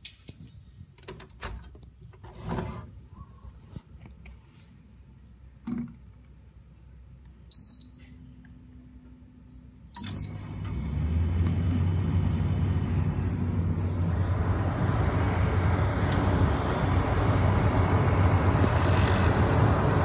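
A few knocks and clicks, then two short high beeps from the Carrier air conditioner, about two and a half seconds apart. Just after the second beep, the compact outdoor condenser unit starts in cooling mode: a steady low compressor hum with fan air noise that builds over a couple of seconds and then runs on.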